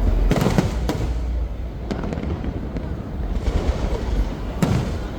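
Aerial fireworks bursting over the water: sharp bangs in the first second, another about two seconds in and a heavy one near the end, with low rumbling echo rolling on between them.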